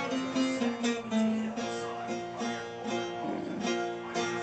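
Saz, a Turkish long-necked lute, being played: a run of plucked notes in a melody, the strings ringing between strokes.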